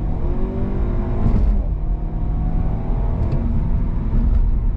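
Audi A4 40 TFSI's 2.0-litre (1984 cc) turbocharged four-cylinder petrol engine accelerating hard with the gearbox in S, heard from inside the cabin. The engine note climbs, breaks off at a gear change about one and a half seconds in, then climbs again.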